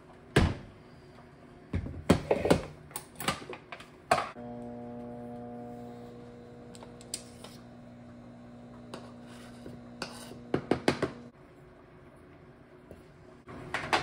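Kitchen utensils and ingredient containers clicking and knocking while dry ingredients for tortilla dough are measured out by hand. A steady electrical hum starts about four seconds in and cuts off about seven seconds later.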